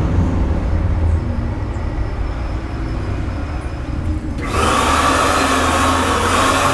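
A low steady hum, then about four and a half seconds in a handheld electric paint spray gun switches on and runs with a loud, even hiss of spraying paint, its paint flow turned up to maximum.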